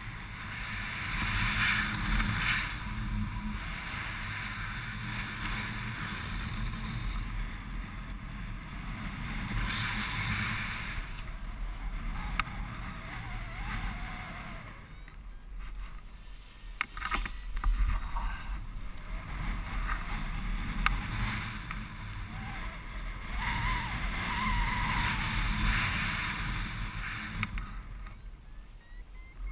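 Wind rushing over the camera's microphone in paraglider flight, a low rumble with a hiss that swells and fades in gusts. A few sharp knocks come about halfway through.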